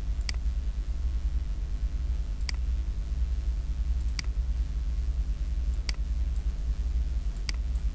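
Five single computer mouse clicks, spaced roughly one and a half to two seconds apart, over a steady low hum of background noise.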